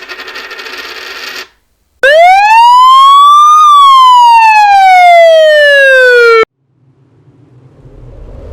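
A loud siren-like tone that rises in pitch for about a second and a half, falls slowly for about three seconds, then cuts off suddenly. Before it, a short burst of rattly noise ends about a second and a half in, and a whoosh begins to swell near the end.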